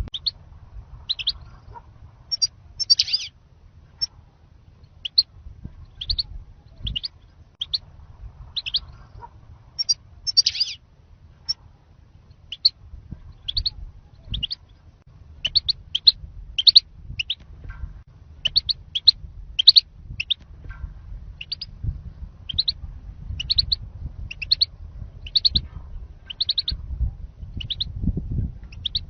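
European goldfinch giving short, high chirping call notes over and over, about one or two a second, the kind of call played to lure wild goldfinches in. A faint low rumble runs underneath.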